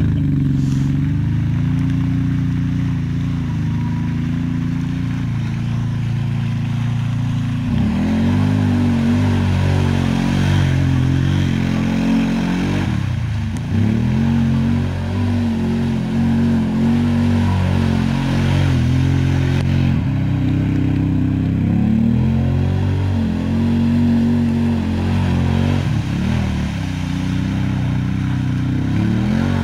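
Side-by-side UTV engine revving up and down as the machine spins donuts through deep mud, its pitch rising and falling over and over, with tyre and mud-spray noise on top.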